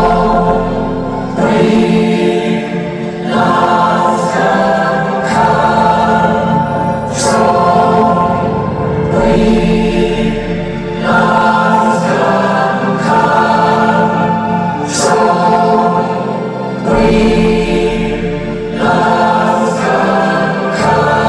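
Live concert music with a choir singing sustained chords that change every couple of seconds, over a band backing with regular sharp accents.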